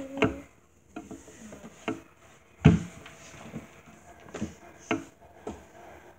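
Scattered knocks and bumps of objects being handled and moved around out of view, the loudest about two and a half seconds in.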